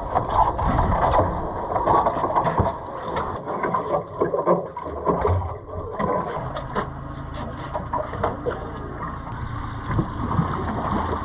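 Noise aboard a small fishing boat at sea: water and wind, with scattered knocks and clicks.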